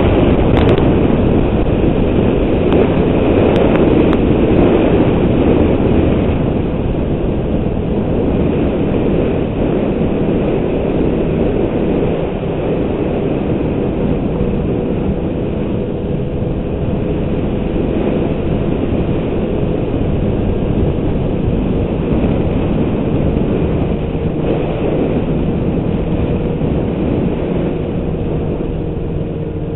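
Snowmobile engine running steadily as the machine rides along a groomed trail, a continuous mechanical drone with a held engine note. It drops a little in level after about six seconds.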